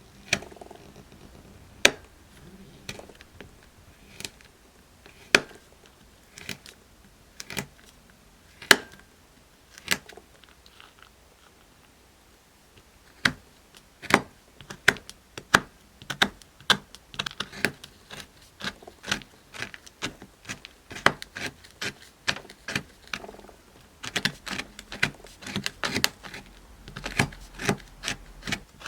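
Sharp clicks and taps of a utensil on a hard surface, spaced about a second apart at first. After about thirteen seconds they come faster and more irregular, several a second, densest near the end.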